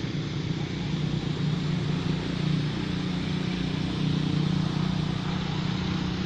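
An engine running steadily, a low continuous hum.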